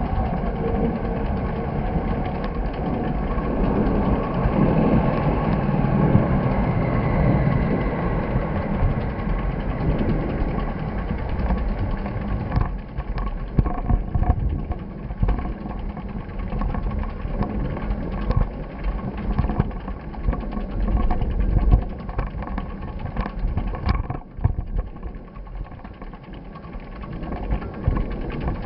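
Steady vehicle and road noise: a low rumble with faint steady engine tones and scattered short knocks in the second half.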